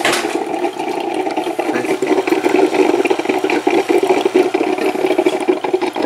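Black & Decker drip coffee maker gurgling and bubbling steadily as its heater pushes water up to the brew basket, the sign that it is filling properly again now that the clog is cleared. A single knock right at the start.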